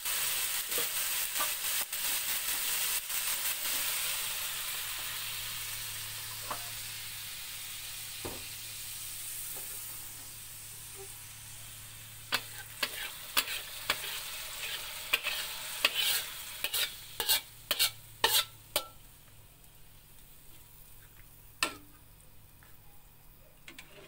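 Ground spice paste sizzling in oil in an aluminium wok while a metal spatula stirs it, frying until cooked and fragrant; the sizzle fades out over the first dozen seconds. Then a run of sharp metal clinks and scrapes of utensils against the aluminium pot, with one more clink near the end.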